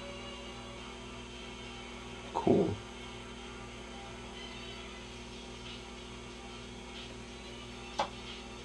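Admiral 16R11 tube television humming steadily, with a short loud thud about two and a half seconds in and a sharp click near the end.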